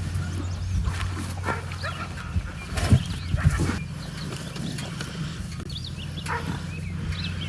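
Cows close to the microphone, with a few short loud breaths, over a steady low hum. Small birds chirp faintly.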